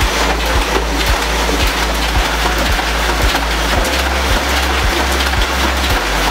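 Background music with a steady beat about twice a second and a deep bass line, over the steady mechanical noise of a sheet-fed offset printing press running.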